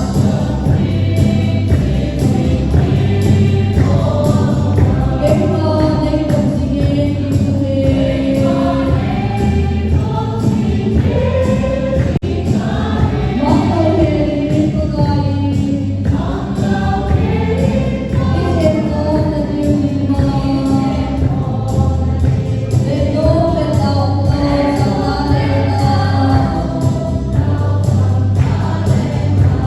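Music: a song with group singing over a steady beat, in the style of a gospel choir.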